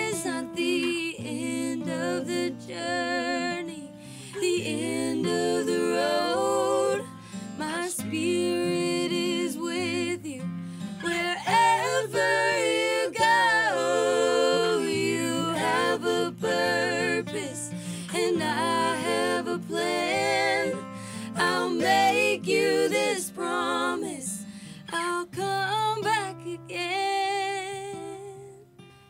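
Live acoustic folk song: women's voices singing in harmony with vibrato over two acoustic guitars. The singing drops away near the end.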